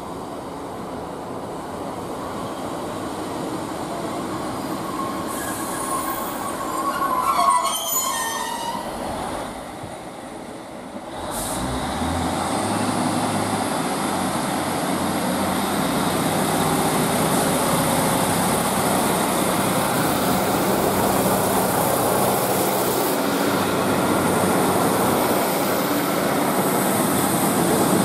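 Class 156 Super Sprinter diesel multiple unit coming into a station, its brakes giving a wavering squeal about eight seconds in. After a sudden change, its diesel engines rise in pitch and loudness as it pulls away.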